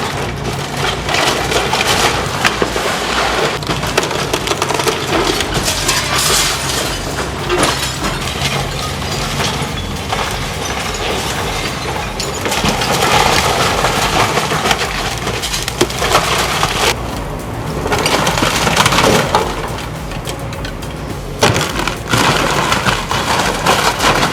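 Building demolition: wood splintering and cracking and glass breaking as the structure is torn apart, with a heavy machine's engine running steadily underneath.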